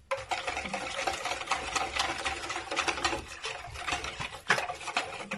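Liquid dough ingredients being stirred briskly in a bowl: a fast, continuous run of clicks and scraping that starts abruptly.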